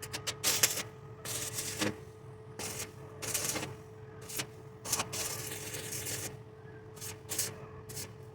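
Arc welding on steel: short crackling bursts of the arc, about a dozen of differing length, stopping and starting as welds are laid, over a steady hum.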